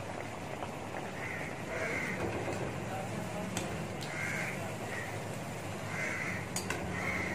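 Crows cawing in a series of short calls, some in pairs, over the steady sizzle of puris frying in hot ghee in a steel kadhai.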